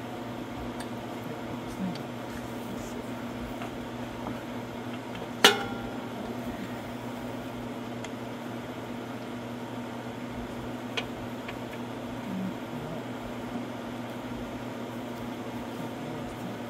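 Hand work on a push mower's engine: a single sharp metallic clink that rings briefly about five and a half seconds in, a fainter click later, and small handling noises over a steady hum.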